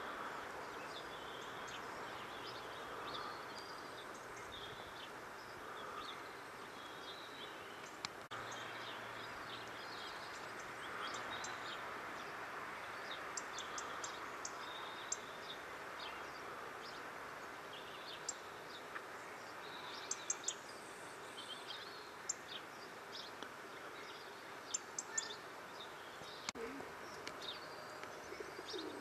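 Short, high chirps and twitters of small garden birds, scattered and becoming more frequent about halfway through, over a steady background hiss.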